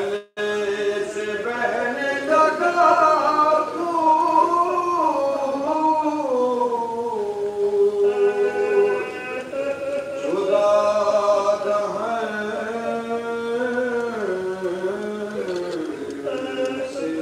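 A man's voice chanting a slow, melodic religious recitation, holding long notes that slide up and down in pitch. The sound cuts out for an instant just after the start.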